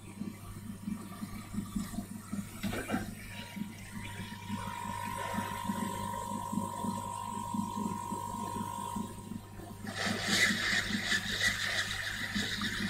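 Hot air rework station blowing on a phone logic board while a chip is reflowed back onto its pads. It is a steady airy hiss over a low hum, and the hiss grows much louder about ten seconds in. A thin steady tone runs for several seconds in the middle.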